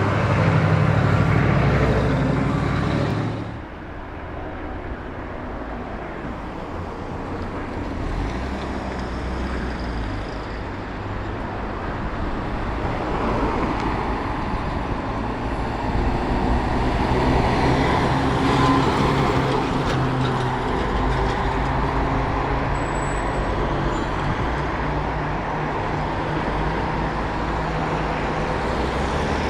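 Heavy road vehicles driving by, engine and tyre noise. A loud passage in the first few seconds drops away abruptly, then steady traffic noise swells again toward the middle.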